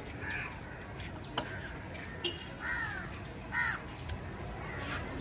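Crows cawing, about three calls, with a few sharp knife knocks on a wooden chopping block in between.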